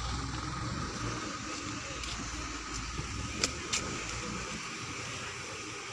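Truck engine running with a steady low rumble that fades near the end, with two sharp knocks about three and a half seconds in.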